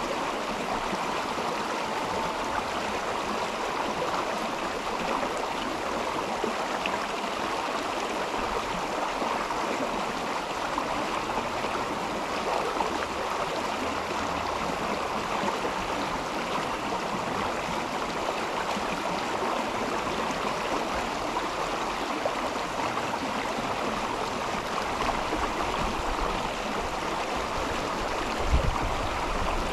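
River water flowing steadily. A brief low thump comes near the end.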